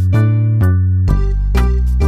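Upbeat background music with a strong bass and a steady beat, a new note or chord sounding about twice a second.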